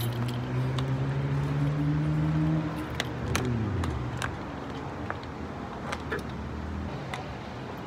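A motor vehicle's engine humming as it passes, its note dropping sharply about three seconds in and fading by four seconds, with a low rumble lingering. Light clicks and knocks come from a road bike's frame being handled and loaded into a car trunk.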